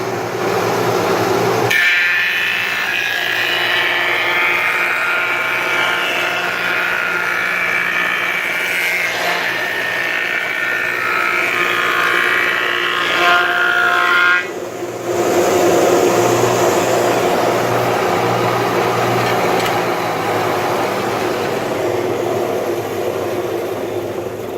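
Solem 12-inch planer, its 1750 RPM head motor on a dual belt drive, running while a knotty 2x4 is fed through. About two seconds in, the cutterhead bites and a high-pitched planing noise starts. It lasts about twelve seconds and stops abruptly, then a lower, rougher noise carries on and fades near the end.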